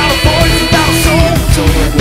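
Loud rock music with a singing voice over a dense, pulsing beat.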